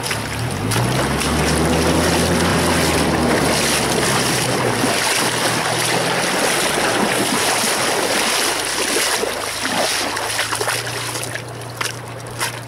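A vehicle engine runs under a steady rush of river water and wind on the microphone. The engine's pitch shifts up and down in the first seconds, then settles to a steady low hum about halfway through.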